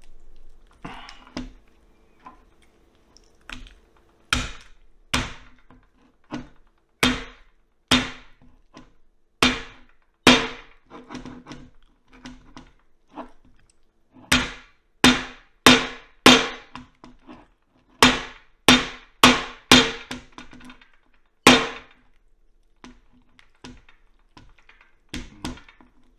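A knife blade striking down again and again on a roasted lamb's skull on a plate, about two dozen sharp, irregular blows as it fails to split the bone.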